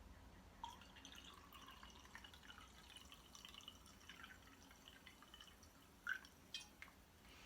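Faint kitchen handling noises: scattered light clicks and taps, with a few sharper knocks about six seconds in.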